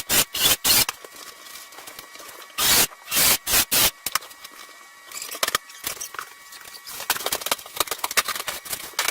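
Quick scraping strokes of a hand tool: about four in the first second, another group of five or so a little before halfway, then a run of lighter clicks and scrapes.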